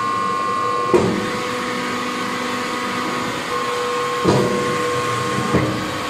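Hydraulic wood-shavings bagging press baler running with a steady hum. A few sharp knocks come through it, about a second in, past four seconds and near the end.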